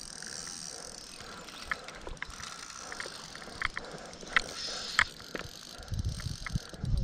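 Spinning reel under load from a hooked fish, giving scattered sharp clicks over a steady high hiss. Low thuds come near the end as the reel handle is taken up again.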